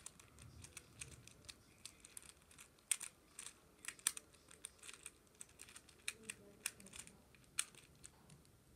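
Plastic infinity cube fidget toy being flipped and folded in the hands, making irregular sharp clicks, a few a second.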